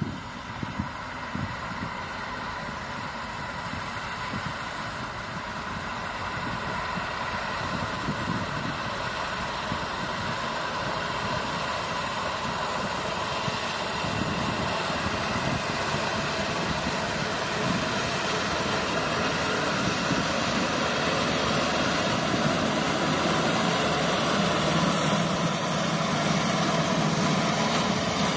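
Small four-wheel-drive farm tractor's engine running steadily, growing gradually louder.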